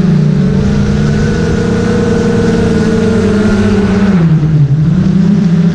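DJI Mavic 2 Pro quadcopter's propellers and motors whirring steadily in flight, heard up close. The pitch sags and dips about four seconds in, then climbs back as the motors change speed.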